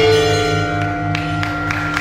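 Music: a held chord of steady tones over a low pulsing bass, with a few short clicks near the end.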